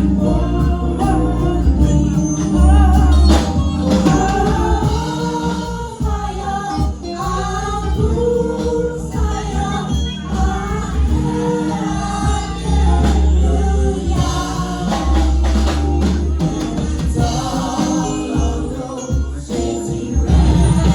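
Children's choir singing a gospel anthem over an instrumental accompaniment with heavy bass notes.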